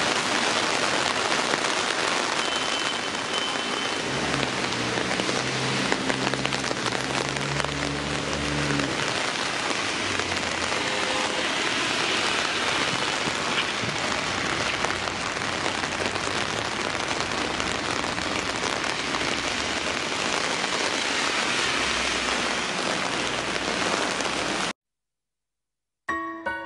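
Heavy rain falling on a wet city street, a dense steady hiss, with the low hum of a passing vehicle's engine for a few seconds about four seconds in. The rain cuts off suddenly near the end.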